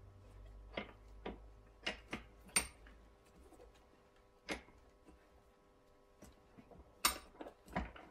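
Light, scattered metal clicks and taps from a bench vise being wound in to press a rubber-covered piston locator onto a brake caliper piston. There are about eight separate clicks, with a quiet spell around the middle.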